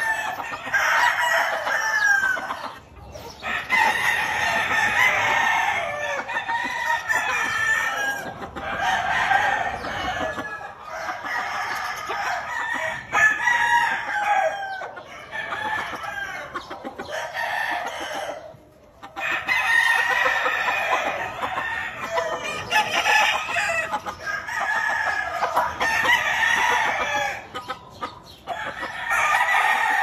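Gamecocks crowing over one another with clucking, a near-constant din of overlapping calls from many birds. It drops out for a moment a few times.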